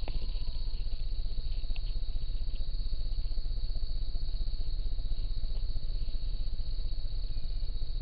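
A steady high-pitched insect chorus, typical of crickets, over a constant low rumble of trail-camera microphone noise. A faint whistled note falls slightly in pitch right at the start.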